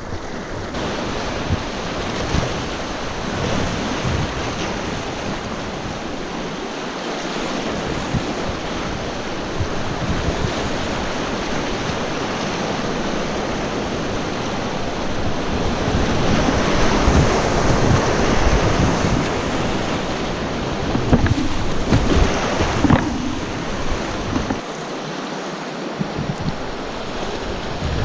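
Whitewater rushing and splashing around a kayak running river rapids, with wind buffeting the microphone. The water gets louder for a stretch past the middle as the kayak runs rougher water.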